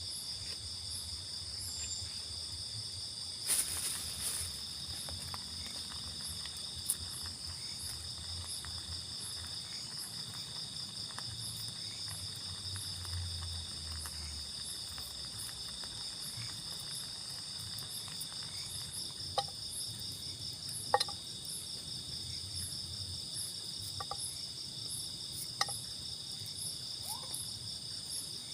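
A steady chorus of insects trilling at a high pitch. A brief rustling burst comes about four seconds in, and a few sharp clicks or knocks come in the second half.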